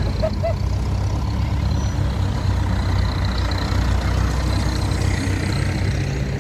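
Diesel engine of a red Case IH International tractor running steadily as it drives past close by, a low drone, with car traffic passing as well.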